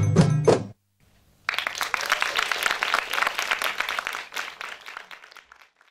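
A drum-led belly dance tune ends on its final strokes. After a short pause an audience applauds, the clapping fading away over about four seconds.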